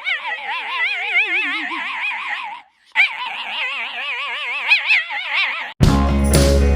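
A dog howling in two long, warbling calls separated by a brief pause. Loud music cuts in abruptly near the end.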